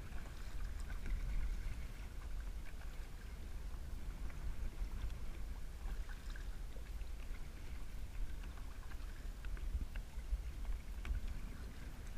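Kayak paddling on a river: small paddle splashes, drips and water lapping at the hull, over a low, uneven wind rumble on the microphone.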